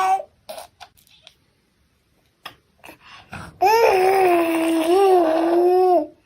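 A long, wavering cry lasting about two and a half seconds. It comes near the end, after a few short, brief sounds.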